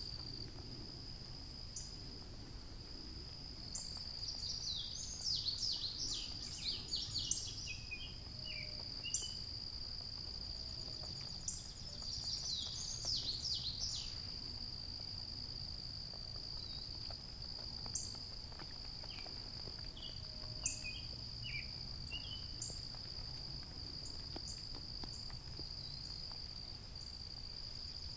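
Evening insects droning in one steady high-pitched note, with bird song in quick runs of falling whistled notes a few seconds in and again near the middle, and a few sharp ticks.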